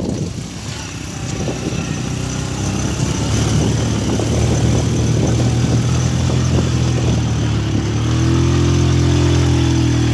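Motorcycle taxi's engine running under way, with a noisy rumble at first; the engine note steadies and grows louder about eight seconds in.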